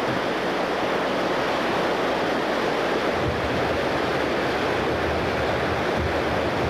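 Whitewater of a big Deschutes River rapid rushing steadily. A low rumble joins about three seconds in.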